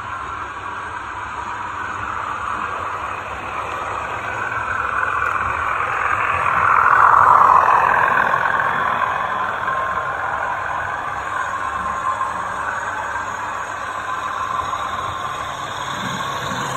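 OO gauge model trains running past on the track, with a steady whirr of locomotive motor and wheels on rail. It grows louder about seven seconds in as a Colas Rail-liveried locomotive and its coaches pass close by, then eases off as a second train follows.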